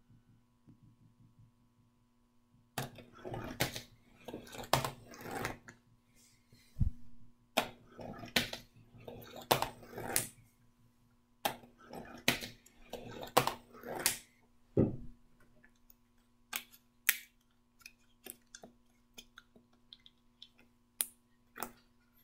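Small steel balls rolling down marble-run ramps: a rattling roll broken by sharp clicks as they hit and drop from one ramp to the next, in several runs between about three and fifteen seconds in, then scattered single clicks.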